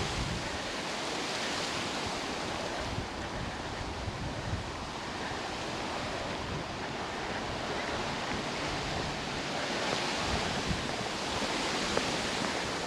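Wind rushing through the trees in a steady surf-like rush that swells and eases, with some wind buffeting the microphone.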